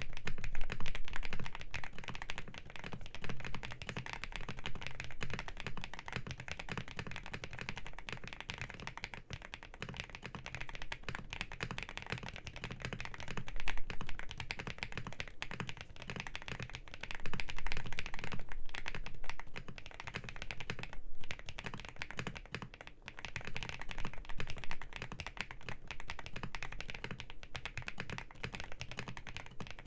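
Continuous typing on a BJ75 custom mechanical keyboard with hand-lubed Outemu Rail switches and tuned stabilizers: a dense stream of key clicks, with a few louder, faster flurries.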